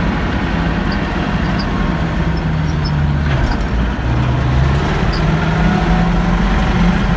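KhTZ T-150 tractor's V8 diesel engine running under way, heard from inside the cab. The engine note drops about three and a half seconds in, then rises again.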